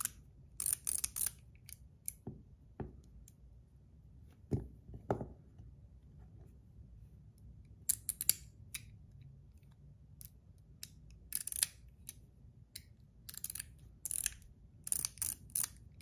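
Zirconium Metal Toys DZ Top D clicker fidget clicking through its detents as its two bars are turned against each other by hand. The sharp metal clicks come in irregular clusters of several in quick succession, with short pauses between.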